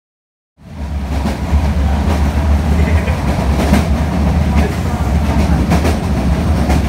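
Moving passenger train heard from inside the coach: a steady low rumble with irregular clickety-clack of the wheels over rail joints. The sound cuts in suddenly about half a second in.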